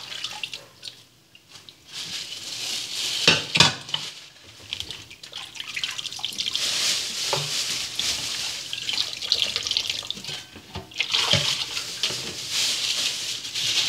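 Kitchen tap water running into a plastic bowl in a stainless steel sink as pork ribs are rinsed by hand. The flow gets steady about two seconds in, with a couple of short knocks from handling.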